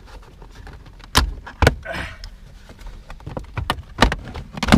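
Plastic interior trim panels of a Mazda RX-8 being pried and ripped out: several sharp snaps as the retaining clips let go, with scraping and rustling of plastic between them.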